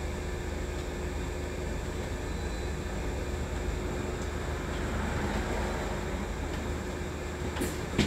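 Upper-deck cabin noise of a moving Wright Electroliner battery-electric double-decker bus: steady road rumble with a faint constant hum. There are a couple of sharp knocks near the end.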